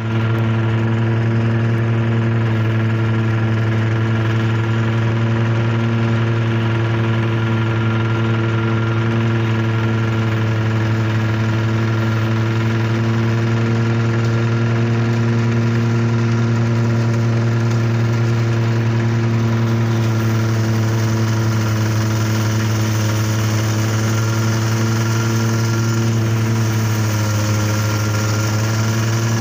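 An engine running steadily at one constant speed, a loud even drone that holds its pitch, wavering slightly near the end.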